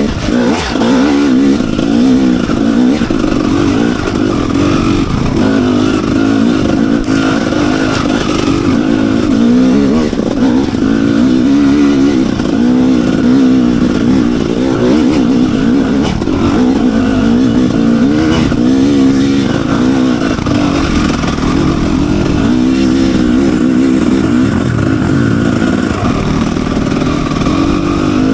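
Enduro dirt bike engine running under load while ridden, its revs rising and falling continually.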